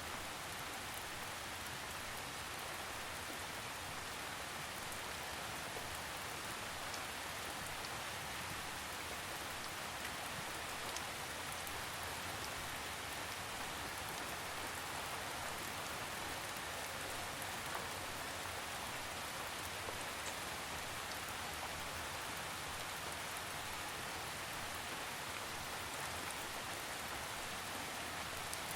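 Steady rain falling on a surface, with a few faint drop ticks scattered through it.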